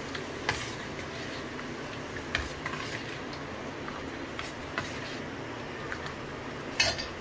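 Steel ladle stirring and lifting thin kadhi in a steel bowl, with a few light clinks of the ladle against the bowl over a steady low background hum. The sharpest clink comes near the end.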